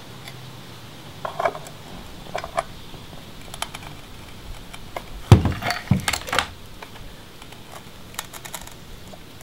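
Scattered light clicks and taps of screws and hand tools being handled on an aluminium door threshold, with two louder knocks about five and six seconds in.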